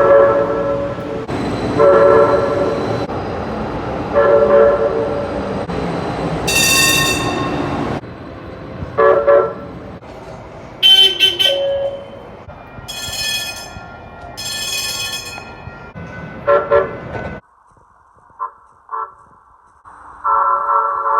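Light-rail train horn sounding a series of short blasts, with separate higher-pitched ringing tones in the middle stretch. After an abrupt drop to a quieter background near the end, the horn sounds again.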